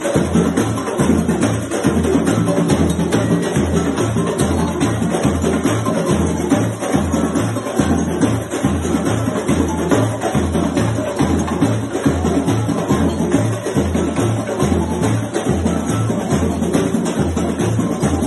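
Brazilian samba batucada percussion music: a low bass drum beats steadily about twice a second under busy hand percussion and shakers.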